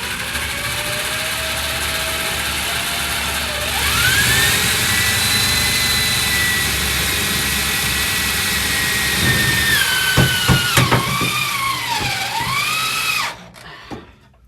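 Handheld electric power tool running for about thirteen seconds: a motor whine that climbs sharply in pitch about four seconds in, then sags and wavers as it bears down on the sheet metal, with a few metallic knocks, before it stops abruptly near the end.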